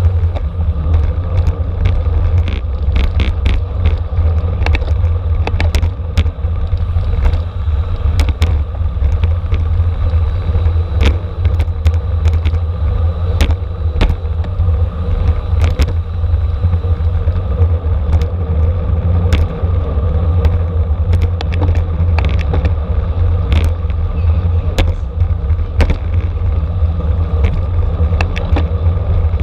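Steady wind and road rumble from a road bike riding fast in a criterium race, with frequent sharp clicks and rattles from the bike.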